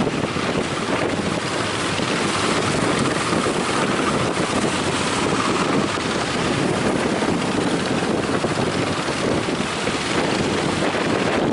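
Strong wind blowing across the microphone, over the steady wash of sea surf.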